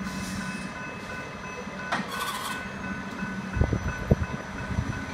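Hi-rail welding truck's diesel engine idling steadily, with a repeating high beep over it. There is a short hiss about two seconds in, then a few low knocks around three and a half to four seconds in as the rail gear is worked at the front of the truck.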